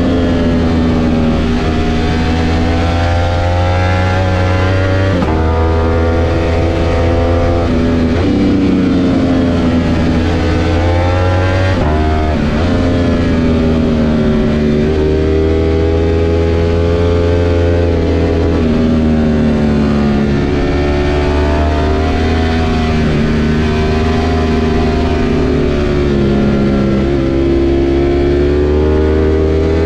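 Ducati V4 S sportbike's V4 engine heard from on board, its pitch rising and falling as the throttle is rolled on and off, with a few sudden breaks in the note.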